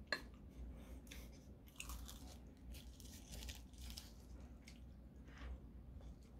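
Faint handling sounds from a metal spoon scooping rice out of a bowl and laying it on a sheet of dried laver: a sharp spoon click just after the start, then scattered soft clicks and crinkles.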